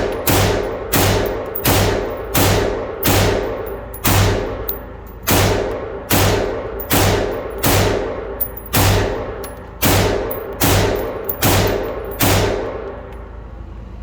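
CZ Bren 2 pistol fired semi-automatically in a steady string of about eighteen shots, roughly one every 0.7 seconds, each shot trailing off in a long echo. The firing stops about twelve and a half seconds in.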